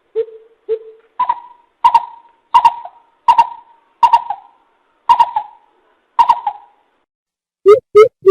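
Coucal (bìm bịp) calling: a series of deep, hollow hooting notes. The first two are lower, then the notes step up in pitch and repeat at roughly one a second. Near the end a faster run of lower hoots begins, about three a second.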